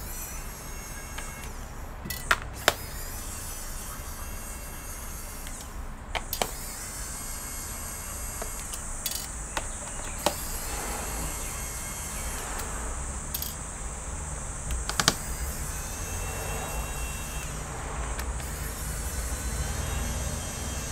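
Scattered sharp clicks and knocks, the handling of a laptop during work on it, over a steady low hum, with a thin high whine from about six seconds in.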